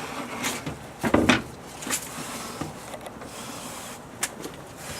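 Knocks and scraping of a wooden board being handled and shifted into place on a miter saw, the loudest knock about a second in and a few lighter ones after.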